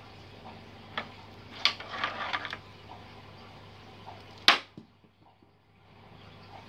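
Aquarium air pump and airstone bubble curtain running, a steady faint bubbling hiss over a low hum. A sharp click comes about a second in, a short run of clicks and crackle just before halfway, and a louder sharp click a little past halfway, after which the background briefly dips.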